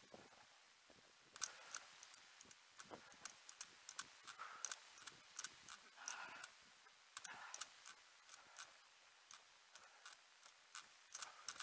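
Faint, irregular clicks and light taps, about two or three a second, some with a short scrape.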